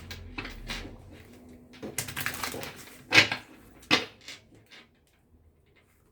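Tarot cards being handled and laid down on a table: a string of irregular taps and clicks, the loudest just after three seconds, then near quiet towards the end.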